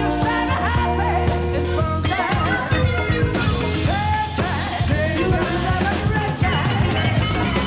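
Rock band with a soulful male lead singer performing a live studio cover, bass and drums steady under bending vocal lines, played back from a cassette tape recording.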